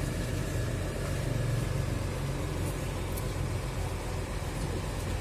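Diesel engines of parked intercity coaches idling, a steady low rumble.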